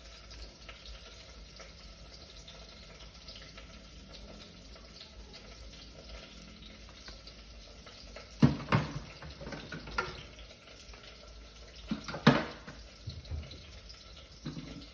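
Quiet kitchen background with a steady faint hiss, broken by two short bursts of knocking and clatter, about eight and twelve seconds in.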